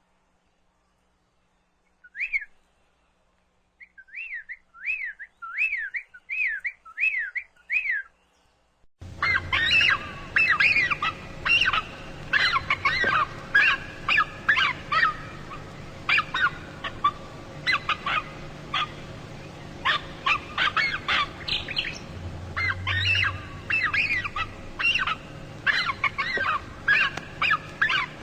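A single bird whistling short rising-and-falling notes, a few spaced and then about seven in quick succession. About nine seconds in it cuts abruptly to a flock of birds chirping and squawking densely over a low steady hum.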